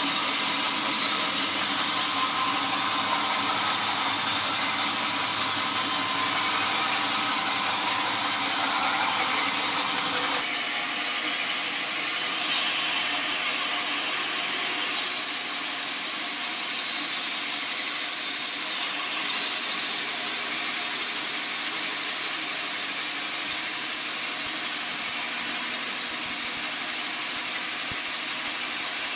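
Sawmill saw machine running steadily with a loud hissing machine noise, its tone shifting abruptly about ten seconds in.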